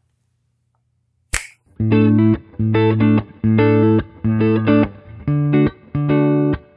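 After a short silence and a sharp click, two electric guitars come in playing a riff of short, choppy chords, about two stabs a second.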